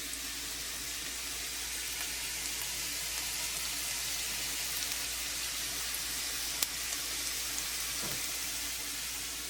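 Steady even hiss with faint crackles and one sharp click about two-thirds of the way through.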